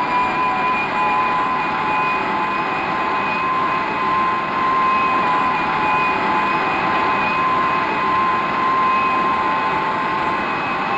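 Early Whittle gas turbine jet engine running on a test bed: a steady whine over a rushing roar, its pitch beginning to climb near the end as the engine speeds up.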